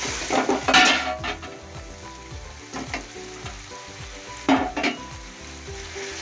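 Vegetables sizzling in hot oil in a kadai over a high flame while being stirred and tossed, the utensil scraping against the pan loudest about a second in and again about four and a half seconds in.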